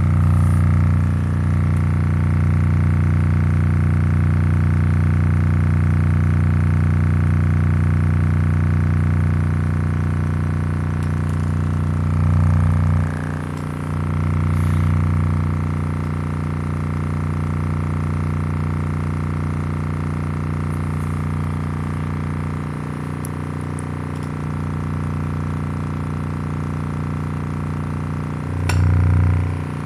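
Aiwa oval midbass speaker driver playing free air, its cone moving hard on a 30 Hz bass tone, heard as a steady low drone with stacked overtones. The drone dips briefly about 13 seconds in and swells again near the end.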